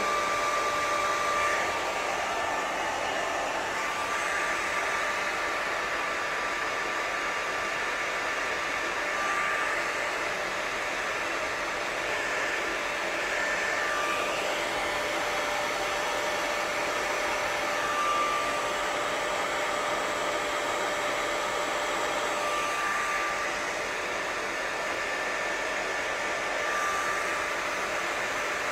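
Handheld hair dryer with a diffuser attachment running steadily: an even rush of air with a faint motor whine over it.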